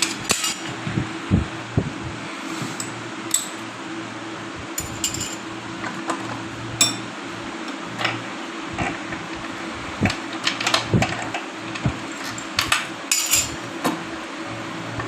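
Irregular metallic clinks and knocks of hand tools and loose metal parts being handled during work on a motorcycle clutch, over a steady mechanical hum.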